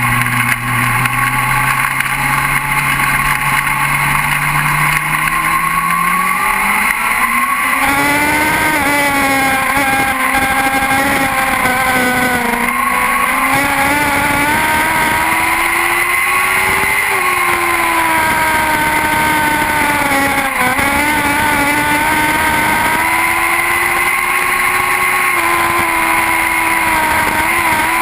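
Lightning sprint car engines racing, several at once. They run at low, steady revs, then climb sharply to high revs about eight seconds in and stay high, rising and falling repeatedly.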